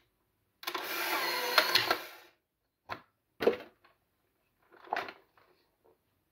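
Polaroid One600 instant camera ejecting a print: its film motor runs steadily for about a second and a half, with a click partway through. It is followed by three sharp plastic clicks of the camera body.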